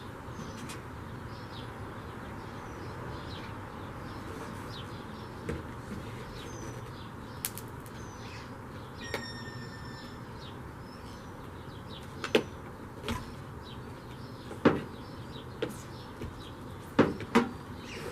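Scattered sharp knocks and clicks of hand-tool work on metal, a few seconds apart at first and then closer together and louder near the end, over a steady hiss. Faint bird chirps sound in the background.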